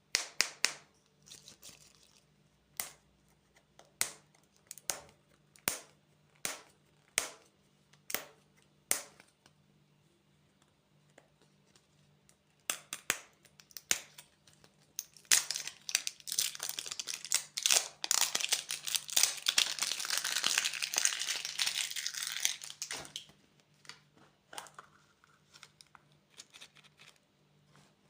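A series of sharp, separate clicks, roughly one every second, then about ten seconds of dense crinkling and tearing of a candy wrapper being opened.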